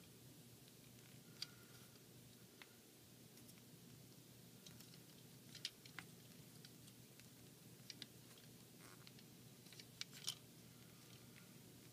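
Faint scattered clicks and taps of small plastic toy parts being handled and fitted together, about eight in all, the loudest about ten seconds in.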